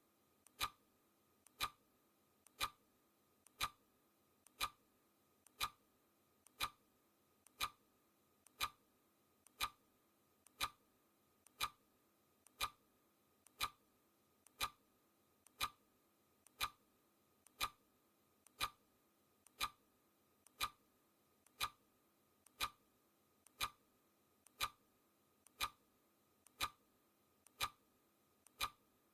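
Clock ticking sound effect marking a countdown, one sharp tick each second, each with a faint lighter click just before it.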